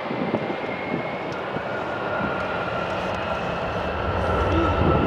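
Boeing 737-800's CFM56 jet engines during the landing roll-out just after touchdown. There is steady jet noise with a high whine, growing louder near the end.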